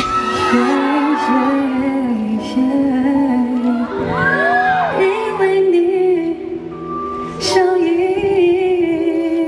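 A female pop vocalist sings live over a backing track, her voice gliding up and down through long held phrases. A sharp hit comes about seven and a half seconds in.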